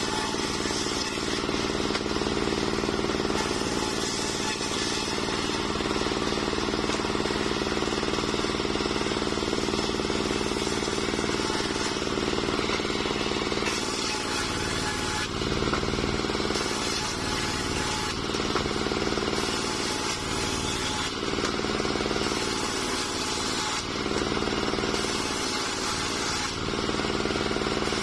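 Homemade engine-driven circular sawmill running steadily as its large blade rips a waru (sea hibiscus) log into slabs. The engine's hum holds steady while a higher saw noise comes and goes in stretches in the second half.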